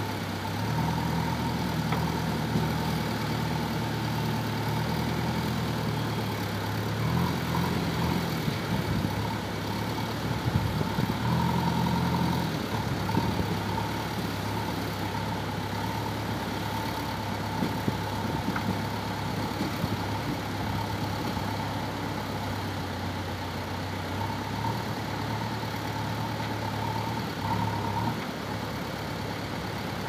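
JCB backhoe loader's diesel engine running as the machine works, its note shifting up and down over the first dozen seconds and then holding steady. A thin steady whine sits above the engine.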